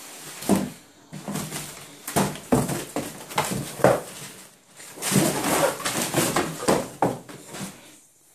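English bulldog biting and tearing at a cardboard shipping box: irregular bursts of cardboard ripping, scraping and crumpling, mixed with noises from the dog itself.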